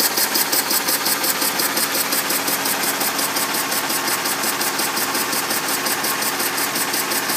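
Homemade single-cylinder steam engine running at a steady speed, its exhaust chuffing in a rapid, even beat with a light mechanical knock from the cylinder and flywheel.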